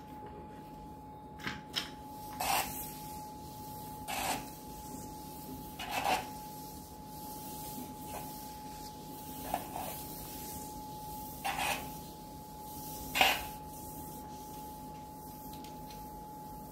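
Dried acrylic paint being scraped and rubbed off a floor. There are about eight short scraping strokes, one to two seconds apart, with a longer pause in the middle.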